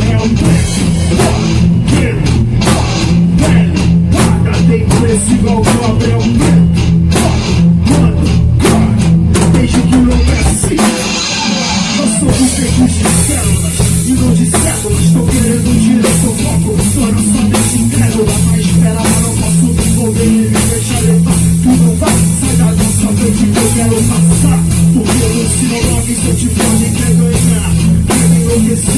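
Band playing an instrumental groove on drum kit, bass and guitar. About eleven seconds in, the bass and drums drop out briefly under a rising hiss, then the full band comes back in with cymbals.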